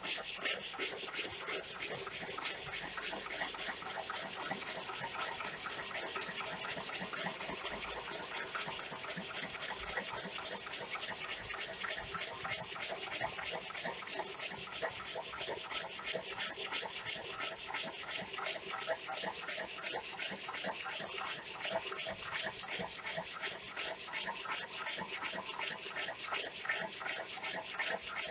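Large homemade Stirling engine running steadily, its moving mechanism making a fast, even clatter of many clicks a second.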